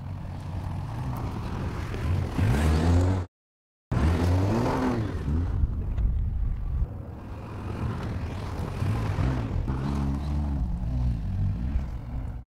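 Toyota Land Cruiser's engine revving up and down as it is driven over dirt trails, its pitch rising and falling several times. The sound cuts out briefly about a third of the way in.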